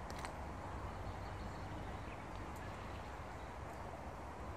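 Steady outdoor background noise at a riverbank, with a few faint light clicks, one just after the start and one about two and a half seconds in.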